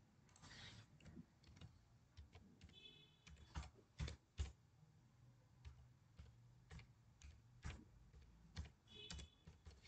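Faint computer keyboard typing: irregular, scattered keystrokes as a short username is typed in.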